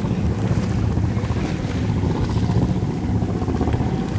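A steady low boat-engine drone mixed with wind on the microphone and the wash of sea water.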